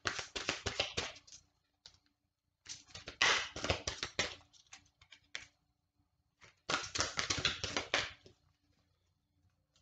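A deck of tarot oracle cards being shuffled by hand: three runs of rapid flicking clicks, the middle one longest, with short pauses between.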